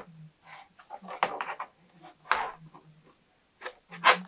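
Drafting tools and paper being handled: a pencil and plastic curved ruler tapping and scraping on kraft paper over a cutting mat, with the paper rustling, in a series of short irregular taps and scrapes, the loudest a little past halfway and near the end.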